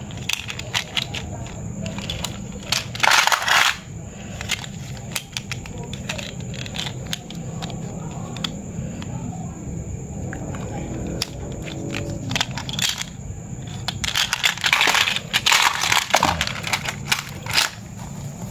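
Loose metal coins clicking and clinking against each other as they are handled and sorted, with louder bursts of rustling about three seconds in and again near the end.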